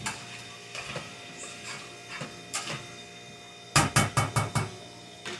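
Wooden spoon stirring in the metal inner pot of an electric pressure cooker: scattered knocks and scrapes, then a quick run of about six knocks about four seconds in.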